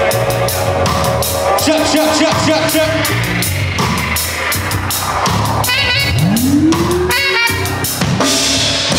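Live band playing, with a drum kit keeping a steady beat under bass and other instruments; a note slides upward in pitch about six seconds in.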